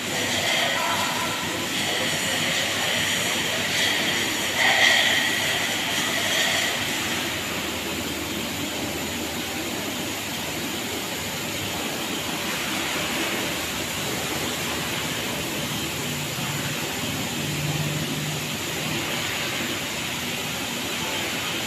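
Car-wash equipment running with a steady mechanical hiss and hum, with a high whine over the first several seconds and a brief low hum later on.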